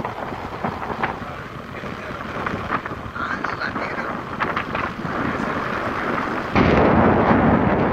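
Wind rushing over the microphone, with road noise from a moving vehicle, growing louder and then jumping suddenly to a much louder rush about six and a half seconds in.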